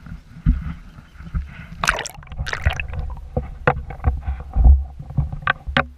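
Water splashing and gurgling around a camera as it is plunged under water, with a low rumble and a string of sharp knocks, the loudest splashing about two to three seconds in.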